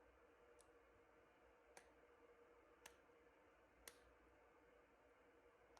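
Near silence: faint room tone with a steady hum and four or five faint, light clicks spaced about a second apart.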